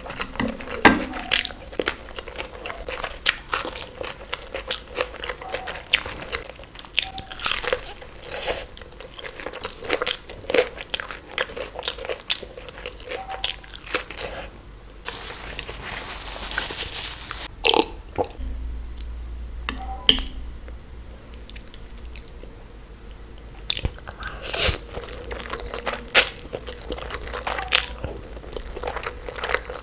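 Close-miked eating: repeated bites and chewing with crisp crunches and wet clicks, and a longer hissing stretch about halfway through.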